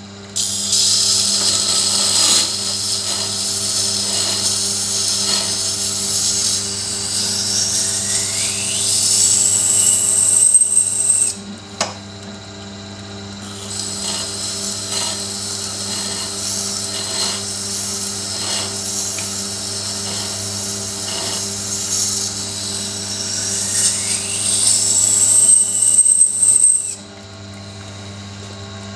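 Steel knife blade being ground on the slowly turning wet stone of a Tormek T7 sharpener: a high scraping hiss in two long passes, the first stopping about eleven seconds in and the second running from about fourteen to twenty-seven seconds in. Under it is the steady hum of the grinder's motor.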